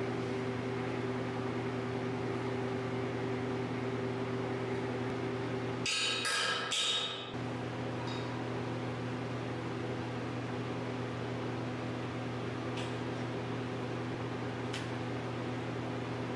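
Steady electrical hum of shop equipment in a small workshop, with a short burst of clattering about six seconds in as the plastic light bar is handled against the steel rack, and a few faint clicks later.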